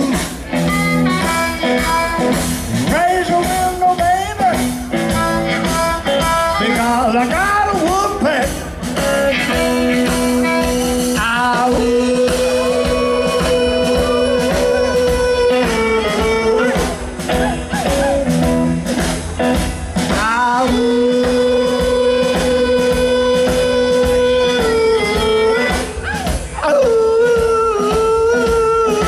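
Live electric blues band: an amplified harmonica plays a solo of bent, sliding notes and long held wailing notes over electric guitar, upright bass and drums.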